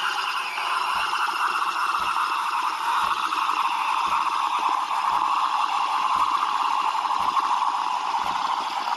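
Espresso machine running a brew through a capsule adaptor: the pump drones steadily while water gurgles through, the pitch sinking slightly, with a low knock about once a second.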